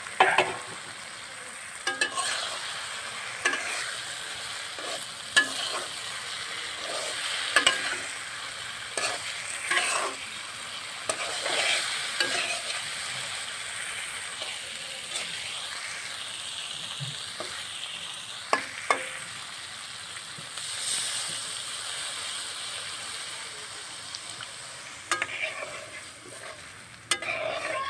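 Fish pieces frying in oil and spice paste in a metal wok, sizzling steadily, while a metal spatula stirs and scrapes against the pan with sharp scrapes and clinks every few seconds.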